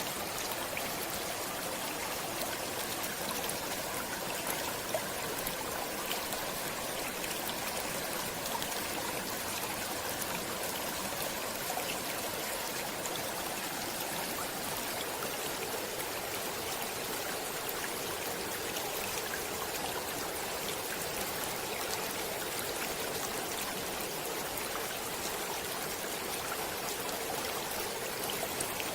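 Stream water flowing, a steady rush with small trickles and droplet ticks.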